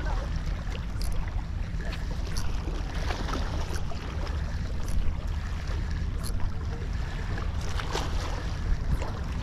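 Wind rumbling on the microphone over water sloshing around a small fishing boat. Short sharp splashes and knocks come every second or so.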